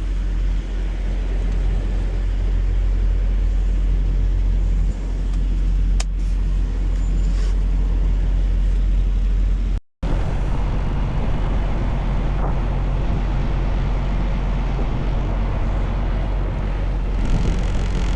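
Semi truck's diesel engine running at low speed while the rig is maneuvered at a loading dock, a steady low rumble. A single sharp click about six seconds in, and the sound cuts out completely for a moment just before ten seconds.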